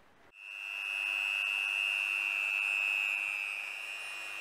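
Electric rotary tool with a felt polishing bit starting up and running with a steady high whine, building over about half a second; the whine eases slightly near the end as the felt bears on the metal reflector.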